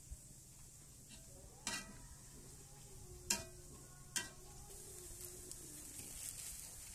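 Cashew nuts frying in hot oil in a wok: a faint sizzle that grows louder about two-thirds of the way in. Earlier come three sharp clinks, the middle one loudest.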